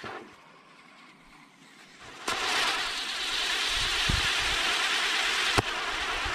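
Brothers Pyrotechnics Destiny Wheel firework spinning, its drivers hissing as they spray sparks. The hiss falls away to a faint rush at first, then catches again with a pop a couple of seconds in and runs steadily, with a sharp crack near the end.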